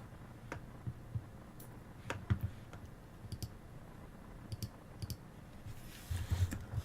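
Scattered, irregular sharp clicks and a few soft low knocks picked up by a microphone, with a short hiss near the end.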